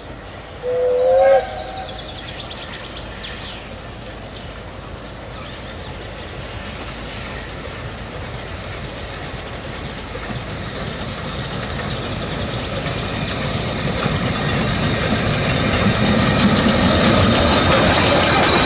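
Narrow-gauge steam locomotive giving one short whistle blast about a second in. Then the train comes steadily closer, its steam hiss and wheel clatter growing louder until the engine draws alongside near the end.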